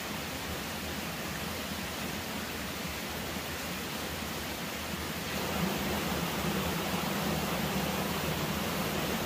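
Steady, even rushing noise with no knocks or chopping strokes in it; it gets a little louder about five seconds in.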